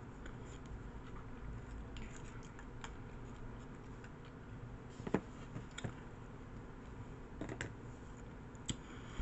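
Faint clicks and scrapes of a plastic spoon in a plastic cup of applesauce, a few scattered ticks over a low steady hum, the sharpest about halfway through.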